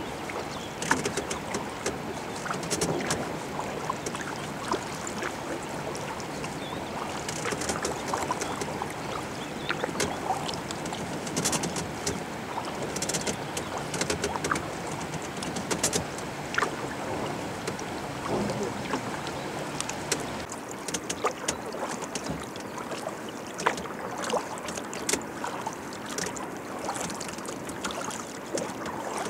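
Kayak paddling on calm water: the paddle blades dip in with irregular small splashes and drips over a steady wash of water along the hull.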